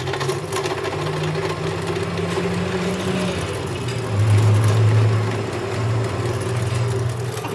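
A vehicle engine running steadily. About four seconds in its note drops lower and gets louder for a moment.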